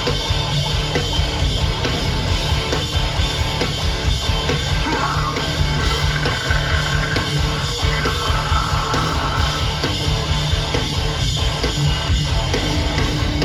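Live rock band playing loud, heavy music with distorted guitars, bass and pounding drums, in a passage without clear vocals.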